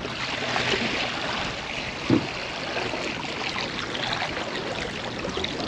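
Water splashing and trickling as a bait bucket is dipped and emptied over the side of a kayak, with a single dull knock about two seconds in.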